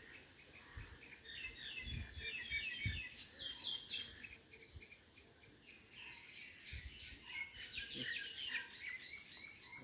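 Small birds chirping in quick runs of short high notes, in two bouts, with a few dull low thumps in between.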